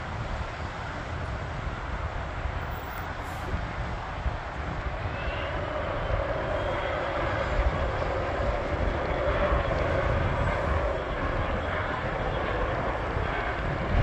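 Business jet's turbofan engines at takeoff power as it rolls down the runway: a steady rushing jet noise that grows louder about halfway through, with a faint rising whine.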